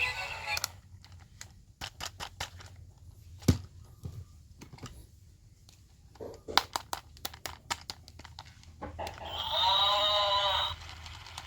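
Scattered sharp clicks and knocks, then about nine seconds in a pitched, wavering tone lasting about a second and a half.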